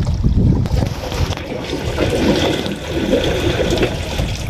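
Water trickling and sloshing, a wet splashing noise over a steady low rumble.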